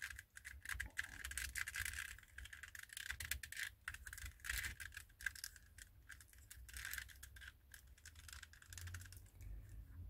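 2x2-based twisty puzzle shaped as a chess knight, cast in polyurethane resin, clicking and rattling as its layers are turned quickly during a solve. The clicks come in rapid, uneven runs.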